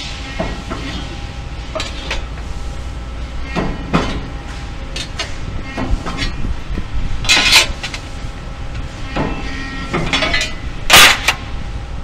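Sheet-metal parts clinking and scraping against a CNC press brake's tooling as they are handled and bent, over a steady machine hum. A few sharp clicks, then two louder metallic clatters, one a little past halfway and the loudest near the end.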